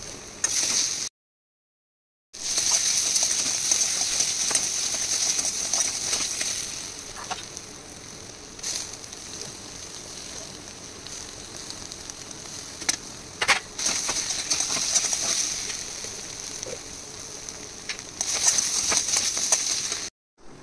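Potato filling frying in an iron kadai: a steady sizzle with a spatula stirring and scraping against the pan, growing louder in stretches and giving a few sharp clicks. The sound cuts out completely for about a second near the start.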